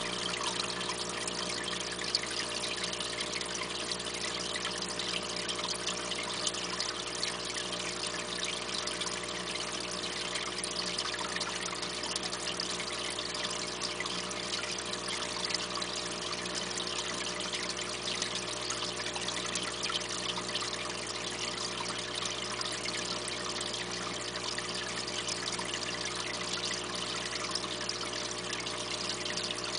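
Aquarium water trickling and splashing steadily at the surface, with a steady low hum underneath.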